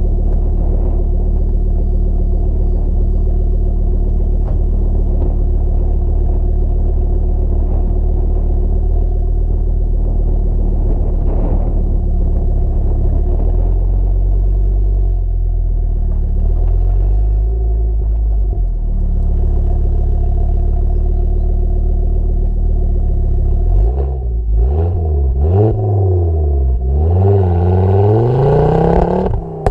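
Tuned 435 bhp Ford Focus RS Mk2's turbocharged 2.5-litre five-cylinder engine through a Milltek exhaust, heard at the tailpipe. It idles steadily, with a brief fall and rise in revs about halfway; near the end it revs up and down several times and pulls away, the pitch climbing.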